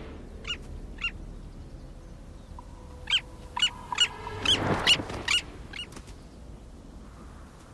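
Arctic skua calling as it dive-bombs: short, sharp, piercing calls, two early and then a run of about seven roughly half a second apart. A soft rush of flapping wings comes in the middle of the run.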